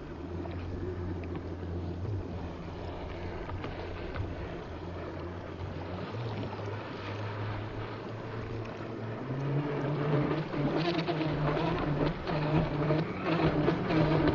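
Radio-controlled speedboat running fast over choppy water: a steady motor drone that gets louder and higher about two-thirds of the way in, its pitch stepping up and down with the throttle. Near the end, sharp slaps come from the hull hitting the chop.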